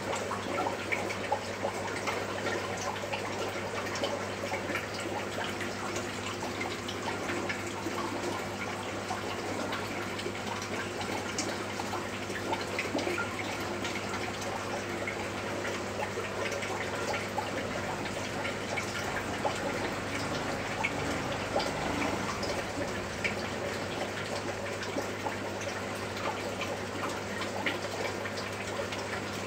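Aquarium water trickling and bubbling steadily, with many small drips and splashes, over a steady low hum.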